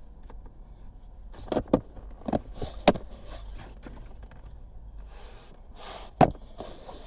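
Hard plastic interior trim clicking and knocking as a navigation controller console panel is pressed into the center console. There are a few sharp clicks around two to three seconds in and one loud snap about six seconds in, with rustling between them.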